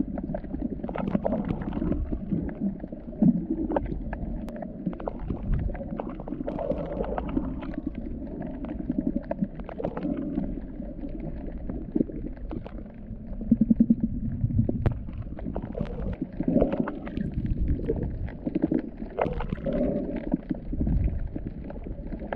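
Muffled underwater sound from a camera held under the sea: low rumbling and gurgling water movement with scattered clicks and crackles.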